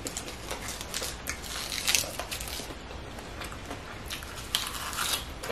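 Close-miked crisp crunching and crackling of raw spinach leaves being handled and bitten, a run of small clicks with denser bursts about two seconds in and near the end.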